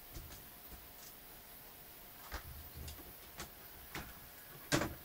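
A few scattered light clicks and taps as a laptop's LCD panel is handled and fitted in its plastic lid, with one louder knock near the end.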